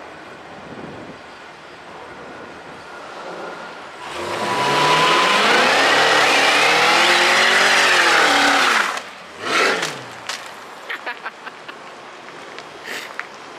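Cadillac CT5-V sedan doing a burnout: about four seconds in, the engine revs hard for about five seconds, its pitch rising and falling, over tyres squealing, then cuts off abruptly. A short rev follows, then scattered light clicks.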